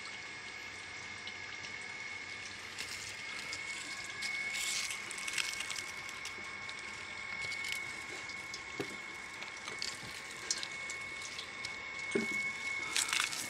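Milky liquid trickling and dripping through a plastic mesh strainer into a steel pot, while a spoon stirs and scrapes the pulp against the mesh with scattered small clicks. A steady high-pitched tone runs underneath.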